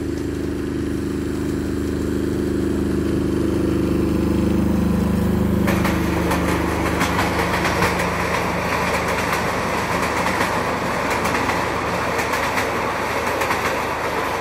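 Miniature ride-on railway train running past with a steady low hum, then, about five and a half seconds in, its wheels begin rattling and clattering loudly as it rolls onto a steel bridge with a grating deck.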